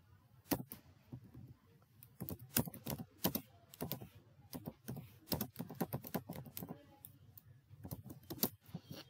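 Typing on a computer keyboard: an uneven run of key clicks, a few scattered at first, then quicker strings of keystrokes.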